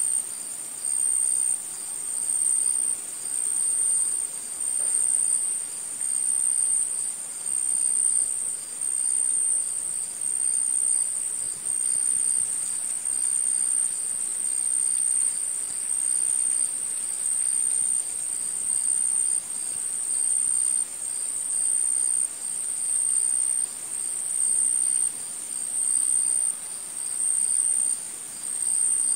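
A chirring insect trilling on one high pitch without a break, its loudness swelling and dipping in an even rhythm about once a second.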